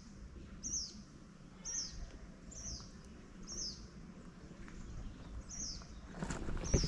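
A bird calling over and over, one short high note falling in pitch about once a second. Near the end, footsteps start.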